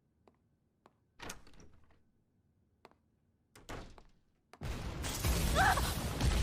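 Anime sound effects: a few faint ticks, then two thuds about two and a half seconds apart. About four and a half seconds in comes a sudden loud rush of noise with a cry in it.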